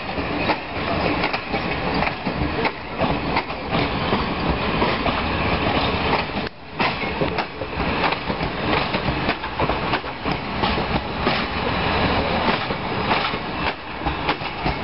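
Romanian CFR passenger coaches of a regional train rolling past on jointed track: a continuous rumble with many short wheel knocks, a clickety-clack over the rail joints.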